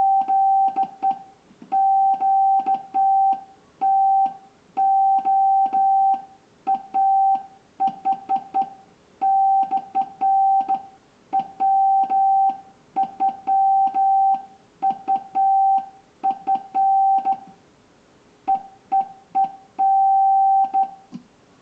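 Wabun (Japanese) Morse code sent by hand on a Hi-Mound HK-808 straight key: a steady mid-pitched sidetone beeps in short dits and longer dahs at an uneven hand-keyed rhythm. Each press and release of the key's lever adds a click.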